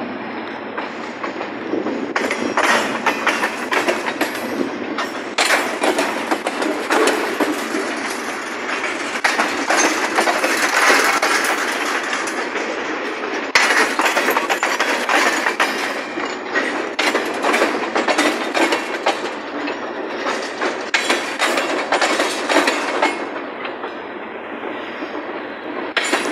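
Freight train rolling past, its steel wheels clacking over rail joints in a steady, uneven run of clicks over a continuous rolling rumble.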